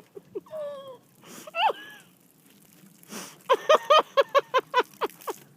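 A woman's sharp gasping breaths, then a quick run of about a dozen short pitched vocal bursts, about five a second, as she reacts to a mouthful of cinnamon powder.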